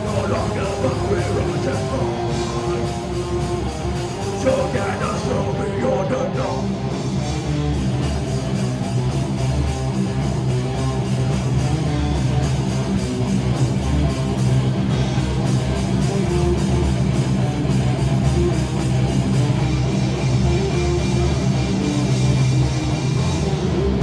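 A live band playing heavy rock or metal through a PA: electric guitars, bass and a drum kit playing together, steady and loud.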